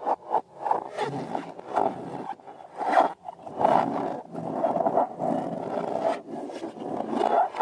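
Rubber balloons being squeezed and let down, air buzzing out through the stretched necks in uneven spurts, with sharp clicks.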